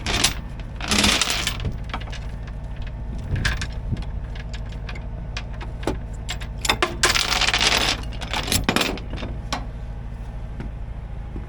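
Truck engine running steadily, with scattered metallic rattles, jingles and clanks over it and several short louder bursts of clattering.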